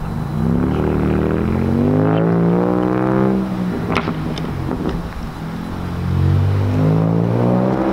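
BMW 335i's twin-turbo N54 inline-six, muffler and resonators deleted, pulling hard in first gear: the exhaust note climbs steadily in pitch for about three seconds, drops with a few sharp cracks about four seconds in as the throttle comes off, then climbs again.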